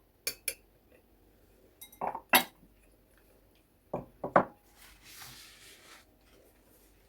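Spoon clinking against a cup: a few short, sharp clinks in small groups about two seconds apart, then a soft hiss a little after the middle.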